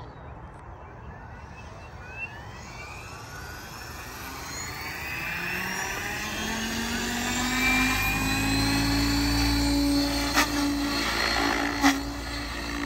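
Electric 700-size RC helicopter (Tron 7 Advance) spooling up on the ground: a whine from the motor and drivetrain rising steadily in pitch and loudness as the rotor head comes up to speed, then holding at a steady pitch with the rotor's blade noise as it lifts into a hover. Two short sharp clicks come near the end.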